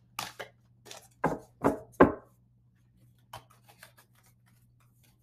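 A deck of oracle cards being shuffled and handled: a quick run of card strokes and taps, the loudest three between one and two seconds in, then a few faint clicks.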